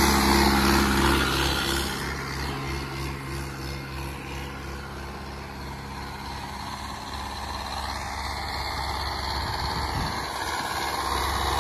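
Turbocharged Mahindra 575 tractor's four-cylinder diesel engine running steadily under load while pulling a cultivator through soil. It is loud at first, fades as the tractor moves away, and grows louder again near the end as it comes back around.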